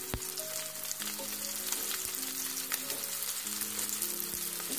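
Soaked soya chunks sizzling in hot oil in a kadai with onion and capsicum, a steady frying hiss with a few soft clicks.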